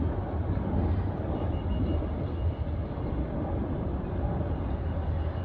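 Leopard 40 catamaran under way on its engines: a steady low engine drone mixed with the rush of wind and water.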